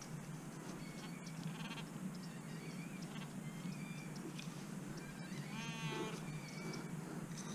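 Garrett Pro-Pointer pinpointer buzzing as it is probed in a freshly dug hole in turf, signalling a coin target: a short buzz about a second and a half in and a longer warbling buzz near the end.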